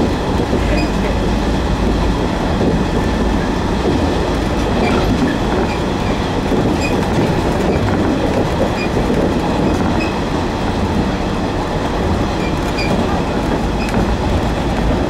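Running noise inside a JR East 115 series electric train car cruising between stations: a steady rumble of wheels on the rails, with faint light clicks now and then.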